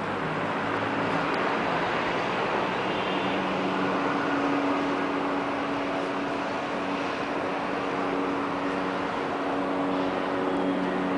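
Distant city traffic: a steady wash of engines and tyres from the streets below, with a low engine hum standing out through the middle of it.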